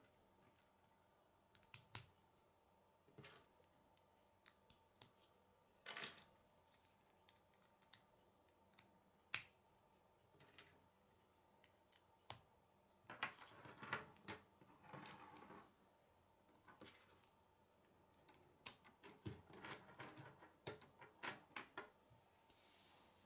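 Plastic K'nex rods and connectors clicking and snapping together as they are fitted by hand: scattered sharp clicks with quiet gaps between, and busier bursts of plastic rattling about halfway through and again near the end.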